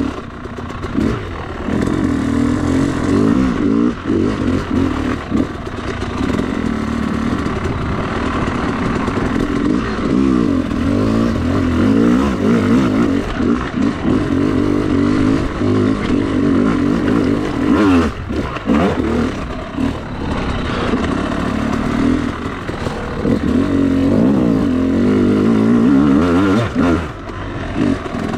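Two-stroke dirt bike engine being ridden on a trail, its revs rising and falling with the throttle, with a clattering knock about two-thirds of the way through.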